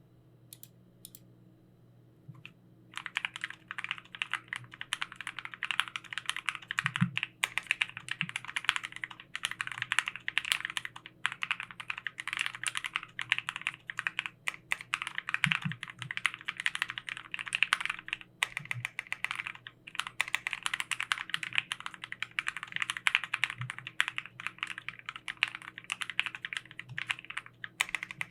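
Fast, continuous typing on a Keychron Q1 mechanical keyboard with lubed and filmed Tangies Light Green switches, starting about three seconds in after a few faint clicks. The board has a slightly pingy sound along its edges, which the owner puts down to keycaps sitting almost against the case.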